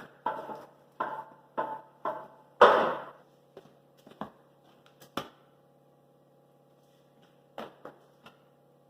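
A string of sharp knocks, about two a second for the first few seconds with the loudest near the end of that run, then a few scattered single knocks, over a faint steady hum.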